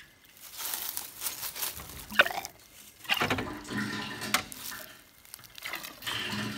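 Old hand-cranked motor-oil dispensing pump being worked: irregular scraping and clanking of its rusty mechanism, with a couple of sharp metal knocks, as liquid spurts and splashes out. The liquid is old water left in the pump, not oil.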